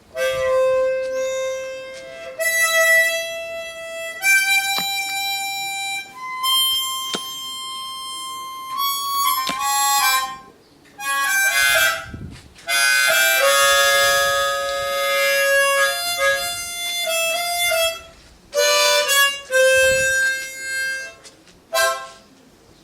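Music: a slow melody of long held notes and chords on a reedy wind instrument, with short breaks between phrases.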